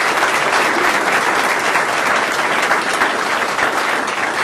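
Group applause: many people clapping together in a dense, steady patter that thins into separate claps near the end.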